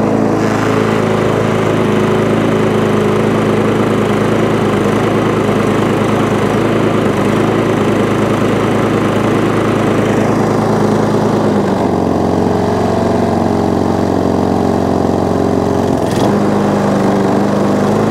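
Tecumseh engine of a small MTD rotary push mower running steadily under way across the lawn. Its note drops slightly for about four seconds about two-thirds of the way through, then comes back up. It is running fairly well now: "don't run too bad."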